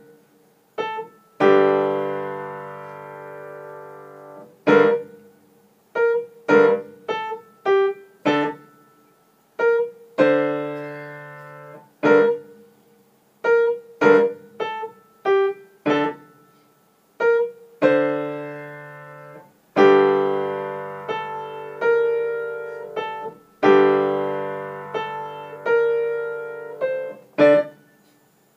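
A child playing a simple beginner piano piece on a Yamaha upright piano: short, separate notes alternating with low chords that are held and left to ring out.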